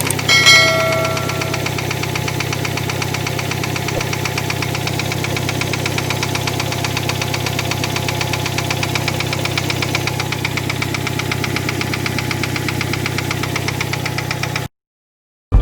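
2007 Hyundai Tucson's 2.0-litre four-cylinder engine running with a rapid, steady knock from the top of the engine. The owner takes the knock for an exhaust valve of cylinder 1 not seating fully in the head, held off by a foreign body. A brief ringing tone sounds about half a second in, and the sound cuts off suddenly near the end.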